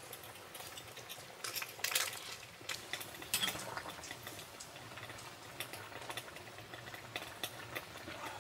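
Food simmering in a steaming pan on a portable gas stove, with light clicks and taps of utensils and dishes now and then.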